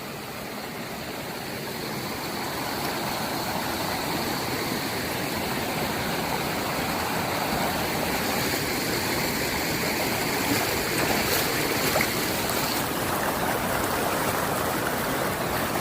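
River water rushing across a washed-out road: a steady rushing that swells over the first few seconds and then holds.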